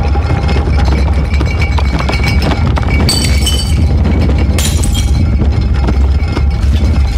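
Glass bottles rattling and chinking against each other over a continuous deep rumble, shaken by the erupting volcano. There are two brighter bursts of ringing glass, about three and four and a half seconds in.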